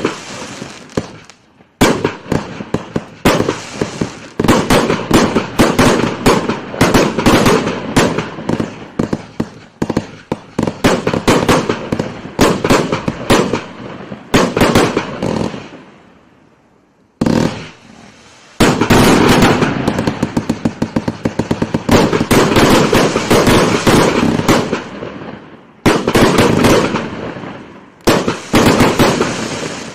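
A compact fireworks cake of 379 shots in 20, 25 and 30 mm tubes firing in rapid volleys, many sharp bangs in quick succession with crackling between. It pauses briefly about a second and a half in and again for a couple of seconds in the middle, then fires its densest barrage.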